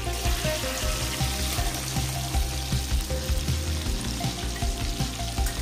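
Sliced garlic frying in hot, bubbling melted butter in a pan: a steady crackling sizzle.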